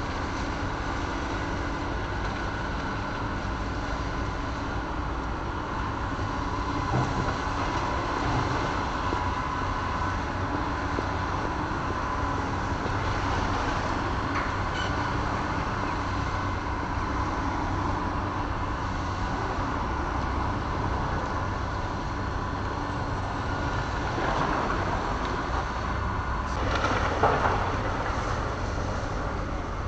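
Hydraulic excavator's diesel engine running steadily as it tears down a building, with a few scattered knocks of breaking debris and a louder rough stretch near the end.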